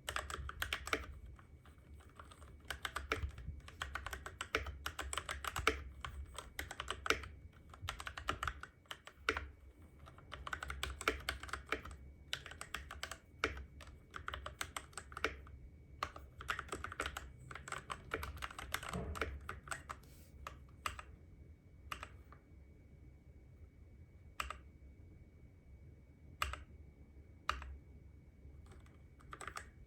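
Typing on a Keychron K6 mechanical keyboard with stock Gateron Brown switches: a fast, dense run of keystroke clicks that, about two-thirds of the way through, thins out to single key presses a second or two apart.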